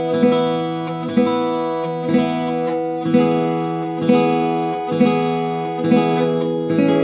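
Acoustic guitar music: a chord strummed about once a second, with a change of chord near the end.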